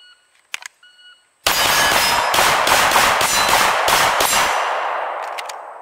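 A shot timer beeps twice; then, about a second and a half later, a 9mm Glock 17 pistol on a Lone Wolf lower fires a rapid string of shots for about three seconds, the echo fading away after the last shot.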